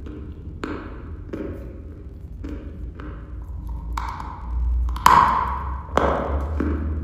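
Dry chalk being chewed close up: crunches in a steady chewing rhythm, then a bite into a chunk about four seconds in that breaks with a sharp snap a second later, the loudest sound, followed by more crunching.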